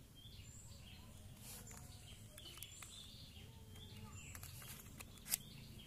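Quiet background with faint bird chirps here and there, and a single sharp click near the end.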